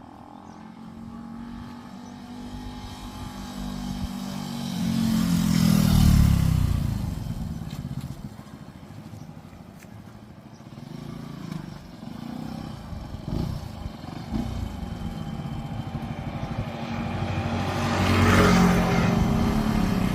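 Benelli TNT 135 small single-cylinder motorcycle riding past at speed: the engine note grows louder, peaks about six seconds in and drops in pitch as it goes by, then fades. It comes past again, loudest near the end.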